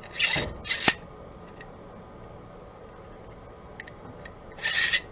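A thin metal support rod being slid into and fitted to a 3D-printed plastic part, making short scraping sounds: two in the first second and a third near the end.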